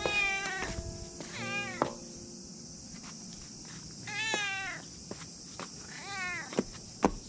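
Calico cat meowing four times, each meow rising and then falling in pitch.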